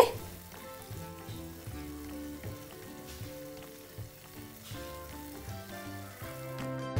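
Gulab jamun dough balls deep-frying in hot oil in a saucepan: a steady, soft bubbling sizzle. Quiet background music with held notes plays under it.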